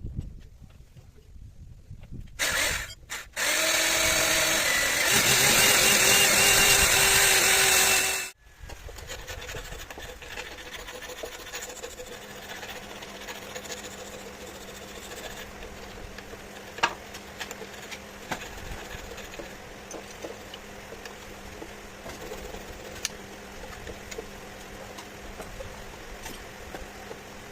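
A power tool starts up with a brief burst, runs steadily for about five seconds and then cuts off sharply. Quieter scraping with scattered clicks and a faint steady hum follows.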